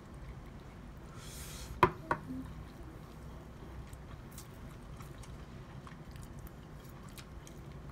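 Quiet mealtime sounds at a table: a steady low room hum with faint clicks of chopsticks and eating, and two sharp knocks close together about two seconds in.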